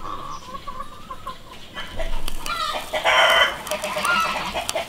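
Chickens clucking, with a rooster crowing; the calls grow louder from about two seconds in, loudest around three seconds.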